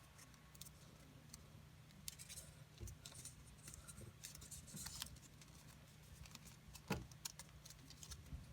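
Faint rustling and crinkling of folded paper being handled and creased, with a sharper crackle about seven seconds in, over a low steady hum.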